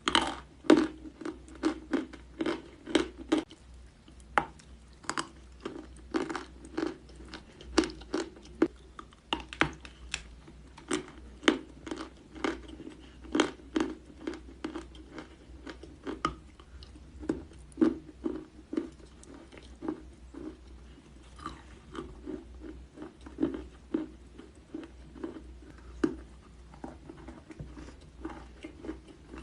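Dry chalk being bitten and chewed close to the microphone: a steady run of sharp crunches, about one or two a second.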